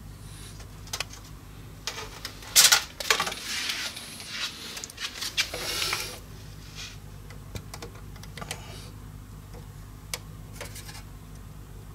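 Steel tape measure being handled against the speaker cabinet: a run of irregular clicks and metallic rattles from the blade, loudest about two and a half seconds in, over a low steady hum.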